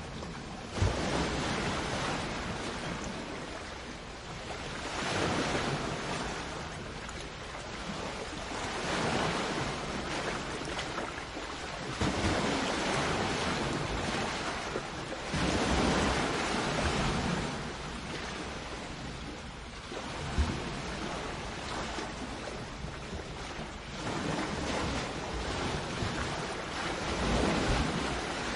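Sea waves washing onto the shore, swelling and falling back every few seconds. There are two brief sharp thumps, one just after the start and one about two-thirds through.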